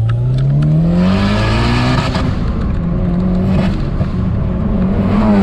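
Turbocharged car's engine heard from inside the cabin, accelerating with a rising note over the first two seconds, then holding a steady pitch.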